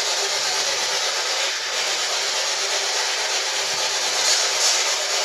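Steady radio static hiss from a spirit box sweeping through radio frequencies, thin and without bass, with a couple of slightly louder crackles about four seconds in.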